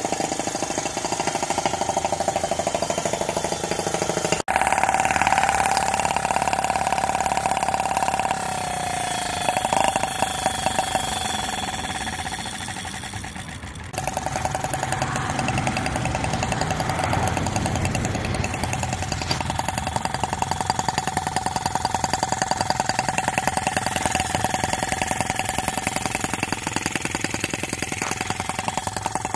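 Microcosm M16 four-stroke gas model engine in a T16 scale model tractor, running at a steady, rapid beat as the tractor drives along. The sound jumps abruptly twice, about four and a half seconds in and near the middle.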